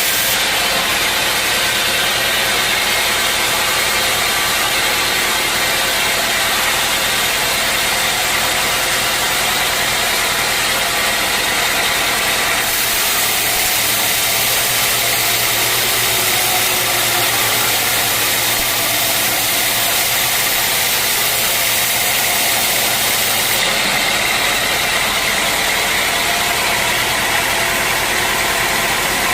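Sawmill machinery running steadily: a constant loud mechanical din with an engine-like hum under it. The high hiss changes abruptly about 13 seconds in and again about 24 seconds in.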